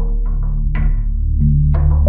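Background music: struck notes that ring out and fade, a few a second, over a steady low bass.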